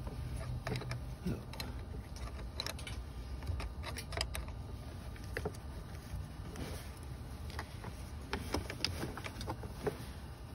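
Scattered small metallic clicks of a wrench working the terminal nut on a car's 12-volt battery, over a low rumble of handling noise from the sleeve up against the phone's microphone.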